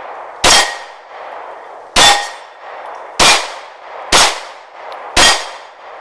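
Semi-automatic pistol fired at steel plate targets: five shots about a second apart, with a sixth right at the end, each followed by the brief ring of the steel being hit.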